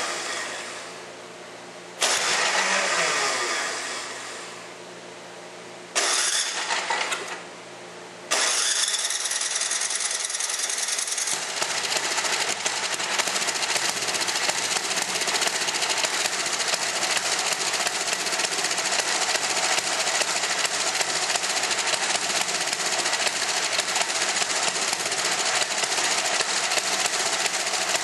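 Tecumseh engine on a Toro snowblower being started after a carburetor cleaning: it catches and fades away three times in the first eight seconds, then keeps running steadily with a fast, even firing beat.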